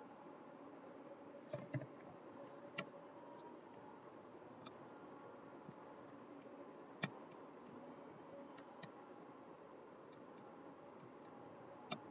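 Scattered, irregular computer mouse clicks and a few keyboard key presses, each short and sharp, over a faint steady background hum.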